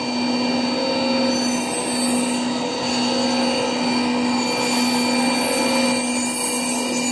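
CNC milling machine running a cut: a steady mechanical whine holding one constant pitch, over the even noise of the cutting.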